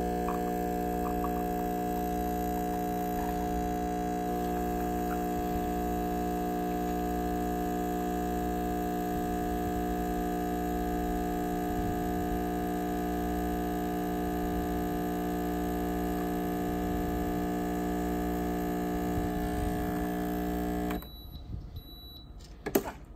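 Breville Barista Express espresso machine's vibratory pump humming steadily while pulling an espresso shot, cutting off suddenly about 21 seconds in. A sharp click follows shortly after.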